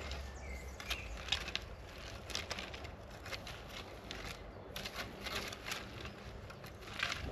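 Steel tines of a long-handled three-tined garden cultivator scraping and crunching through dry, crumbly soil in repeated short strokes, a few a second.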